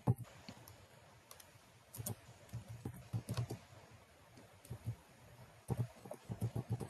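Computer keyboard typing in several short bursts of keystrokes separated by pauses.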